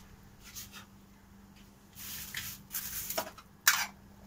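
Plastic bag rustling and handling noises, then one sharp click a little before the end.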